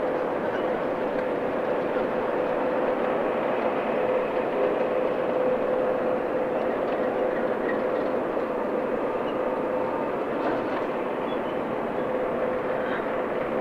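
Class 08 diesel shunter's English Electric six-cylinder engine running as it slowly moves a rake of loaded coal wagons, with a steady hum throughout.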